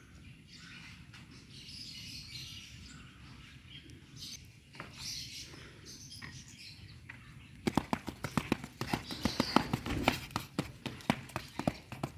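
Faint outdoor background with a few faint chirps, then about two-thirds of the way in a fast, uneven run of sharp taps starts and stays much louder.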